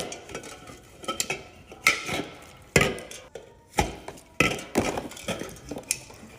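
Sharp knocks and clinks of drink containers being handled and set down while a refrigerator is stocked with beverages, about one knock a second at an uneven pace.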